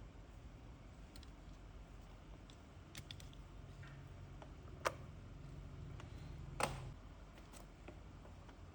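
Faint, scattered small clicks and taps, about six spread irregularly over several seconds, over a low steady hum.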